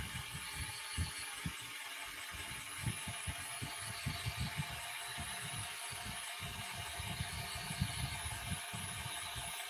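Handling noise from a phone held close: irregular low bumps and rubbing against cloth over a steady hiss with a faint high whine.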